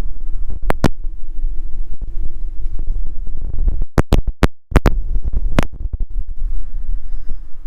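Truck driving down the road: a steady deep road rumble and hum, broken by sharp knocks and rattles, a pair just under a second in and a cluster around four to five seconds in. The sound drops out briefly about four and a half seconds in.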